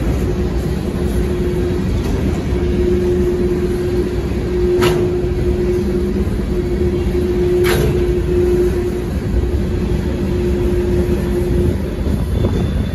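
Freight cars of a manifest train rolling past with a steady rumble and a droning tone, two sharp clanks a few seconds apart, and a high-pitched wheel squeal starting near the end.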